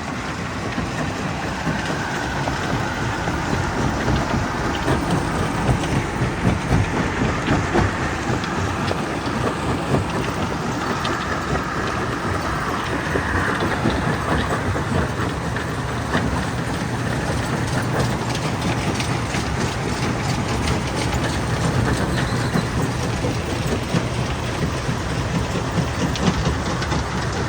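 Stone crusher running, a steady low hum under a dense, continuous clatter of rock knocking and breaking.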